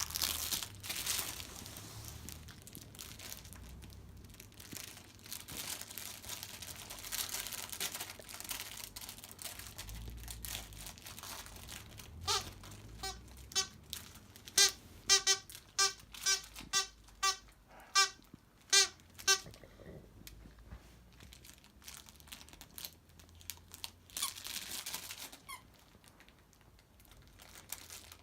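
Rustling and crinkling, then a squeaky toy squeaked about a dozen times in quick succession, each squeak short and high, with a little more rustling near the end.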